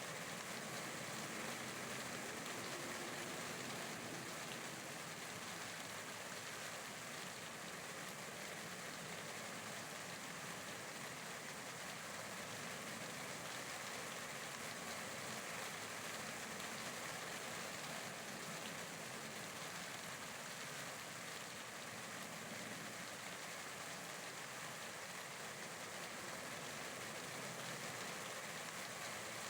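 Steady rain falling, an even hiss of drops with no breaks or single events.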